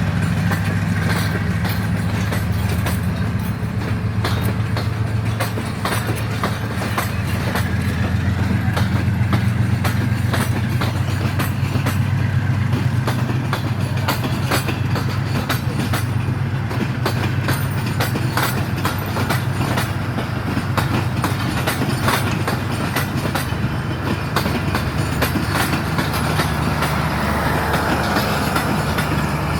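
Passenger train at a station: a diesel locomotive engine running with a steady low drone while the train's wheels click and clatter over the rail joints.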